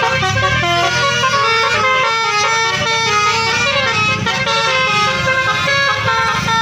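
A bus's Basuri telolet horn playing a tune, its notes stepping quickly from pitch to pitch without a break, over a low engine rumble.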